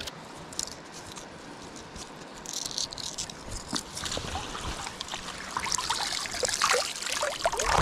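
Shallow creek water splashing and trickling as a mesh net is worked through it by hand, with a brief flurry of splashes about two and a half seconds in and denser, louder splashing over the last two seconds.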